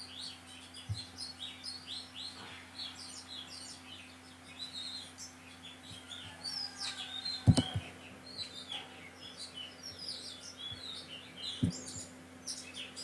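Birds chirping in the background, many short high chirps one after another, over a steady low hum. There are two sharp clicks, the louder one about seven and a half seconds in.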